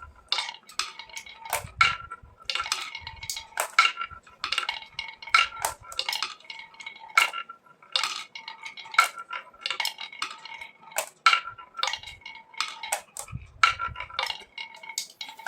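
Hard toy pieces clinking and clattering against each other in irregular clusters of sharp strikes, each with a short metallic-sounding ring.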